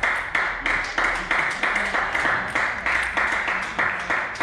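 Spectators clapping together in a steady rhythm, about three claps a second.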